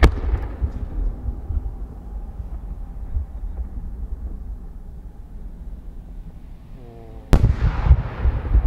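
Japanese aerial firework shells by Nomura Hanabi Kogyo. One shell's burst comes at the start and its rumble echoes and fades away. Then, about seven seconds in, a second shell bursts with a louder sharp bang and echoing rumble, with a brief sliding tone just before it.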